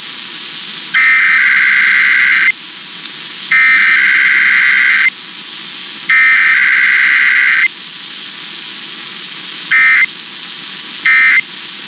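Emergency Alert System SAME digital header: three long, harsh warbling data bursts of about a second and a half each, then three short bursts, the pattern of the end-of-message code. A steady hiss runs underneath.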